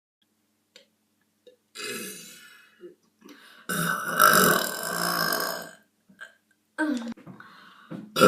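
A person burping: a short burp about two seconds in, then a long, drawn-out burp lasting about two seconds, a brief one near seven seconds, and another loud burp starting near the end.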